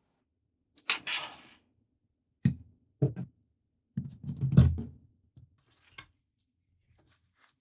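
Computer parts being handled and fitted by hand. A short sliding rustle comes first, then two low knocks, then a longer, louder bout of knocking and scraping, and two small clicks near the end.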